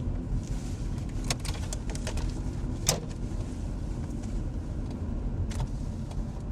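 Car driving: a steady low engine and road rumble, with a few sharp clicks.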